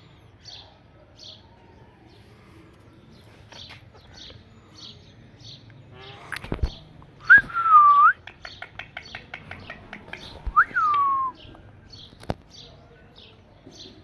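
Indian ringneck parakeets calling: two loud whistled calls, each jumping up and then sliding down in pitch, with a fast clicking chatter between them. Soft, short high chirps repeat throughout.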